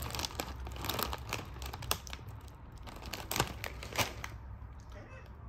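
Crinkling and rustling, with a quick run of sharp crackles and clicks, dying down after about four seconds.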